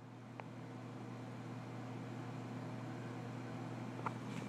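Quiet room tone: a steady low hum under faint hiss, with a light click about half a second in and another near the end.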